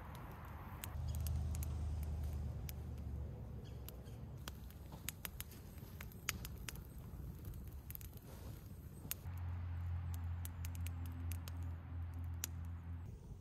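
Campfire burning wood, crackling with sharp, irregular pops. A low rumble swells twice, about a second in and again near the end.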